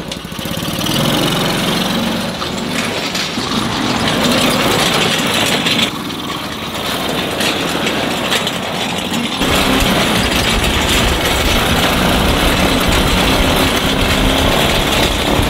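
Small gasoline engine of a kid-size mini tractor running as it drives along a dirt track towing a steel plow frame. The sound gets louder about nine seconds in.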